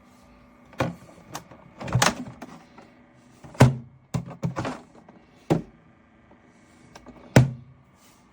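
Small thermoelectric mini fridge running with a steady fan hum, which the owner calls loud, under a series of about nine knocks and thuds from handling.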